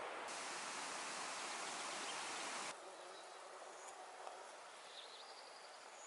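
Outdoor ambience: a steady hiss of wind that drops suddenly to a quieter background about a third of the way in, where a few faint high chirps come through.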